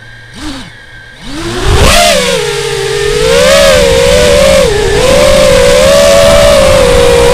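FPV model aircraft's motors and propellers spooling up about a second in with a rising whine, then holding a steady whine that wavers up and down with the throttle in flight. Wind rumbles on the microphone underneath.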